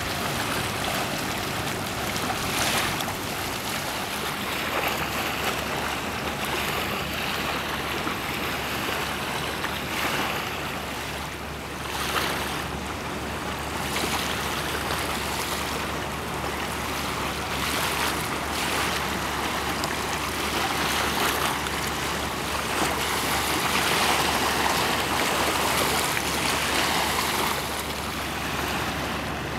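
Wind buffeting the microphone over the wash of river water, with a steady low hum underneath.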